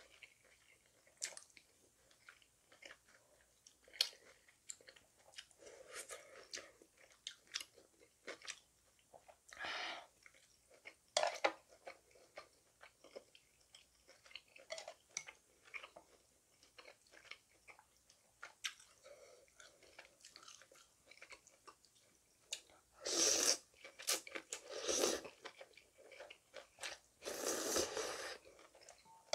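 A woman eating spicy cold noodles: slurping the noodles in, then chewing with many small wet clicks and smacks. Longer, louder slurps come twice in the second half, the loudest near the end.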